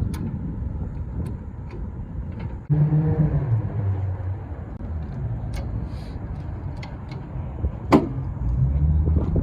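A car engine running with a low rumble. It gets suddenly louder about three seconds in, and there is a sharp click near the end.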